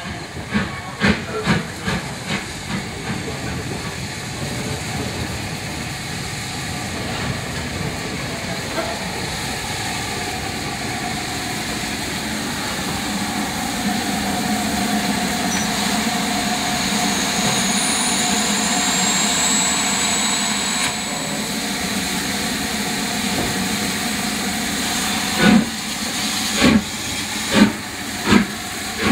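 LMS Jubilee class 4-6-0 steam locomotive No. 45699 Galatea drawing slowly closer with a steady hiss of steam. There are several sharp clicks in the first few seconds and a faint high whine about halfway through. Near the end come four or five loud chuffs as steam blows out at the front of the engine.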